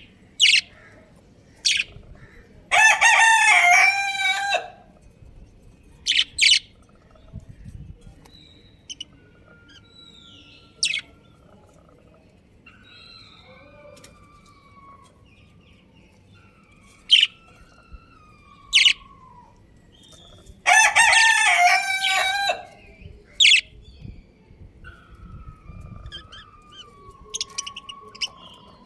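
Pet budgerigars calling, with short sharp chirps at irregular intervals and faint gliding whistles between them. Two longer, louder calls of about a second and a half each come a few seconds in and again about two-thirds of the way through.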